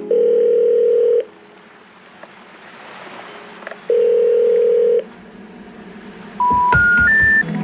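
Telephone ringback tone heard down the line: two one-second beeps about four seconds apart. Near the end come three short tones rising in pitch, the special information tone that signals the call cannot be put through.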